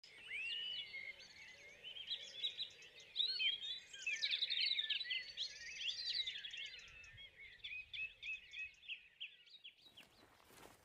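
Several songbirds singing at once, a dense overlapping mix of chirps, trills and warbles that thins out in the last few seconds. Near the end it cuts abruptly to a rustling noise.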